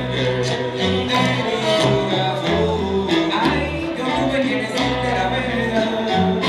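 Salsa music playing loudly, with a repeating bass line under sharp percussion strokes.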